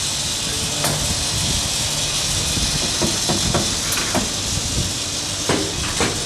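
Petrol flowing from a pump nozzle into a car's fuel tank: a steady hiss, with a few faint clicks.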